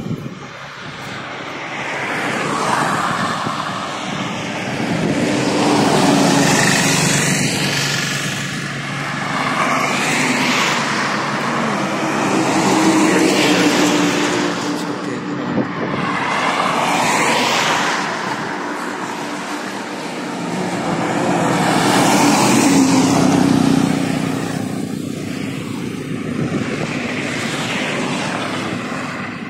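Highway traffic: a series of about six or seven vehicles passing close by one after another, each pass-by swelling to a peak of engine and tyre noise and then fading away.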